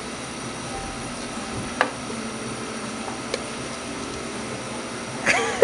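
Steady background hiss and hum of a restaurant dining room, with a couple of faint clicks. Near the end a short vocal sound starts up.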